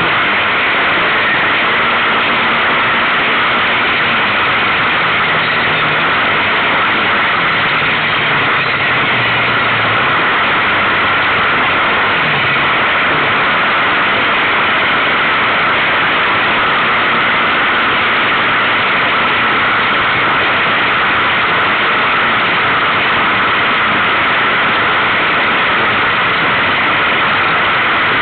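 Kawasaki KFX700 quad's V-twin engine running at speed on a bumpy gravel track, heard under a loud, steady rush of wind and road noise. The engine note rises and falls through the first half as the rider works the throttle.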